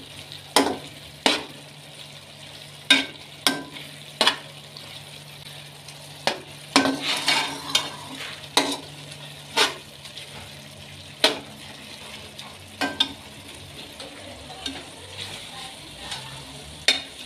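A spoon stirring minced-meat masala frying in a metal pot, knocking and scraping against the pot about once every second or two, over a faint sizzle.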